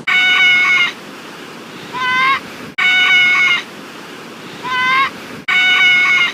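Seagull calls repeating in an identical loop, as from a looped sound effect: a long, level, high cry followed by a shorter cry that rises at its start. The cycle comes three times with abrupt cuts, over a steady wash of surf.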